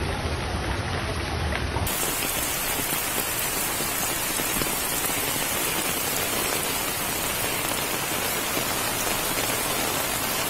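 Heavy rain falling, a steady hiss of water noise. A low rumble under it cuts off suddenly about two seconds in.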